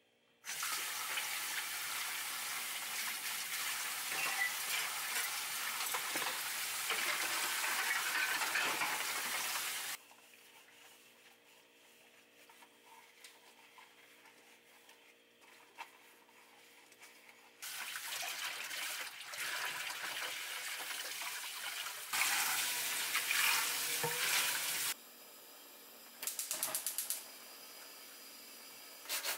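Kitchen sink tap running in long stretches while dishes and mugs are washed by hand, with quieter gaps of handling in between. Near the end come short runs of rapid, even clicking from the gas range's igniter, lit under a wet pan to dry it.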